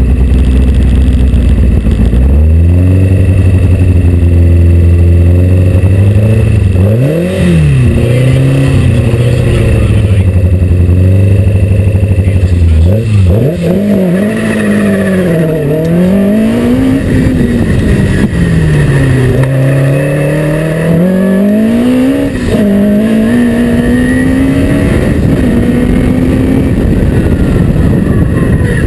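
Westfield SE's Ford Cosworth BDH 1380cc four-cylinder engine idling, then held at raised revs. About halfway through the car launches, and the engine note climbs and drops again and again as it accelerates and changes gear.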